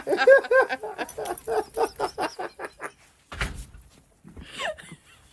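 Huskies giving a rapid string of short, excited yips and barks for about two and a half seconds. A brief low rumble follows, then one longer call that falls in pitch near the end.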